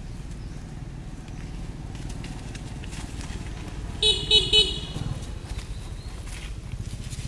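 A vehicle horn sounding three short toots in quick succession, about four seconds in, over a steady low rumble.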